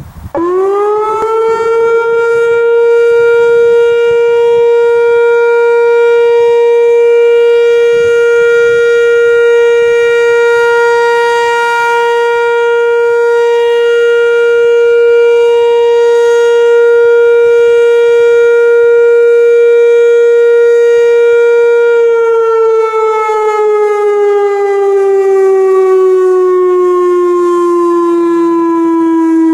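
Whelen WPS 2740 electronic outdoor warning siren sounding its alert signal during a test: it winds up to a steady tone in about a second, holds it, and begins slowly winding down in pitch near the end.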